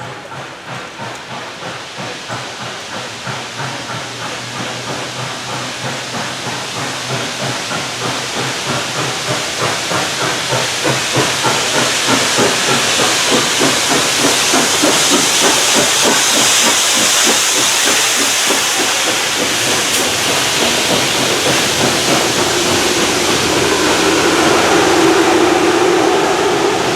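Southern Railway No. 630, a 2-8-0 steam locomotive, working under steam with a steady beat of exhaust chuffs over a hiss of steam, growing louder as it approaches.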